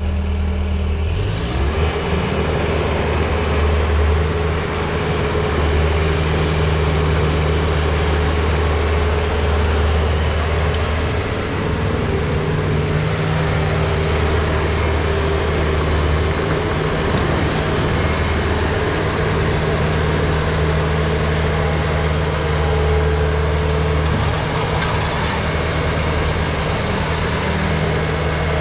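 2017 Bobcat T550 skid steer's diesel engine running steadily, with a steady higher whine over the engine note. The pitch shifts slightly about a second in, then holds.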